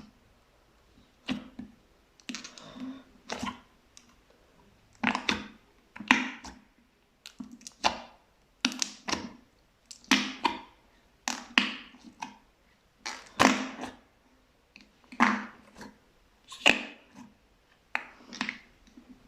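Fluffy slime being pressed and squeezed by hand, giving a string of short crackling pops as trapped air bursts, coming irregularly about once a second.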